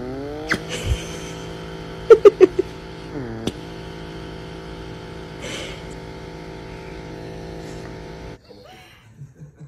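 Small handheld electric nail grinder's motor whirring steadily. Its pitch sags and recovers at the start and again about three seconds in as the dog mouths the tip, with a quick run of sharp clicks about two seconds in. The motor cuts off over a second before the end.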